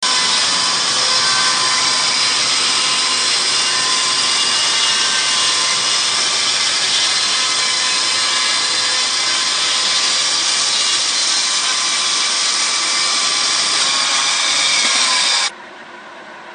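The 10 hp electric chainsaw of a Snik chainsaw mill ripping lengthwise through a pine log under automatic feed: a loud, steady rasp of the chain with a whine running through it. It cuts off abruptly near the end, leaving a much quieter steady noise.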